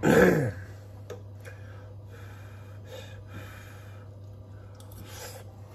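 A short voiced exclamation with a falling pitch right at the start, then soft breaths over a steady low hum as a piece of the chicken is tasted.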